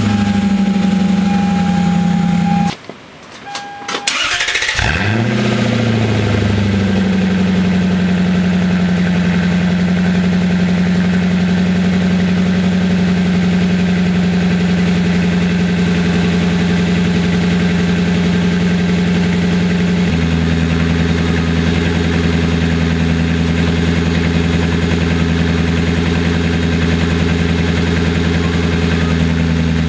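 Lexus SC 400's 1UZ-FE V8 starting and settling into a steady idle through an aftermarket exhaust with a cutout. About two-thirds of the way through, the idle note suddenly turns deeper and fuller, consistent with the exhaust cutout opening.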